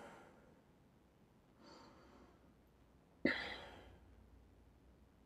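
A person breathing slowly through a held yoga stretch: a faint breath about two seconds in, then a sudden, louder breath a little past halfway that trails off.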